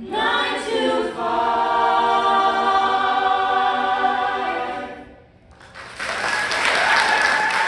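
Mixed-voice a cappella choir singing and holding a sustained final chord, cut off about five seconds in. About a second later, audience applause breaks out.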